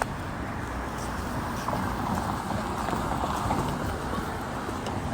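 Footsteps of boots walking on a hard surface, over a steady outdoor background noise.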